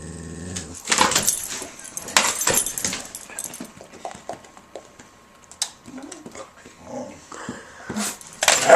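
A dog barking and yipping at a hair dryer in loud short bursts, about a second in, twice around two seconds in and again near the end, with smaller whimpering noises between.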